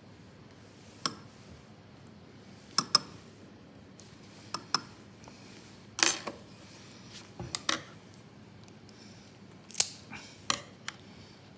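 Sharp, scattered metal clicks and taps, about a dozen, from fish-bone tweezers and a steel tray as the larger bones are pulled from a butterflied sardine. The loudest click comes about halfway through.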